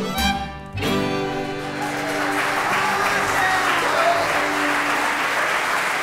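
A western swing string band of acoustic guitars, fiddles and upright bass plays its closing chord: a final strum about a second in that rings out. Audience applause rises underneath it and carries on steadily.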